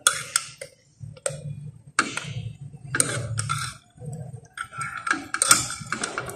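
Thick ground-corn paste glopping and splashing out of a glass blender jar into a pot of simmering chicken stock, with irregular sharp clicks and knocks of the glass jar against the metal pot.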